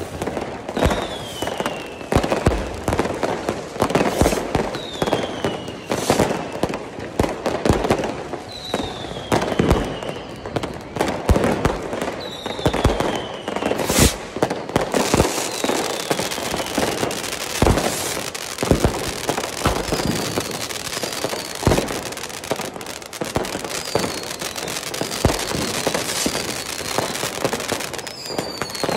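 Consumer fireworks and firecrackers going off one after another: a continuous run of bangs and crackling, with one especially sharp bang about halfway through. Short falling whistles recur every few seconds.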